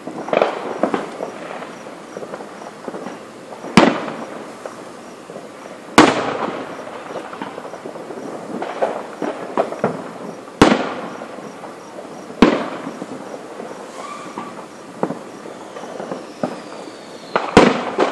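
Aerial fireworks shells bursting: five sharp booms at irregular intervals, each trailing off, with smaller crackling pops between them. A faint falling whistle comes just before the last boom.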